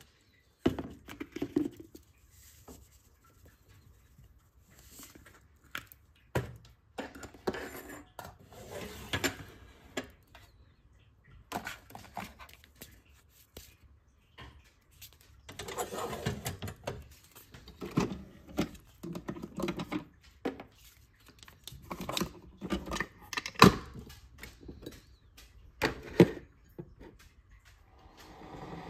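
Coffee pods and a mug being handled at a Keurig single-serve coffee maker: irregular clicks, knocks and rustles with short pauses, and two sharper clicks near the end.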